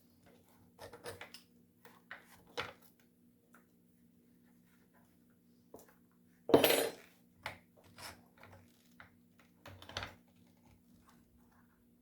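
Metal tools and small parts clinking and clattering as they are handled, picked up and set down, with one louder clatter about six and a half seconds in.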